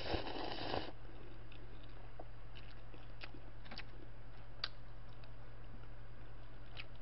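Slurping a mouthful of instant black-bean noodles for about a second, then chewing with a few faint scattered clicks.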